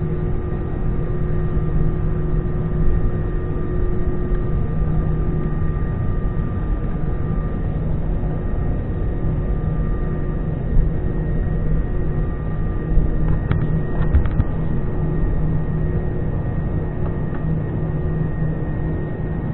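Cabin noise of an Airbus A320-214 while taxiing: its CFM56-5B turbofans running at a steady low thrust, a constant hum with faint whining tones above it. A short burst of light clicks comes about two-thirds of the way through.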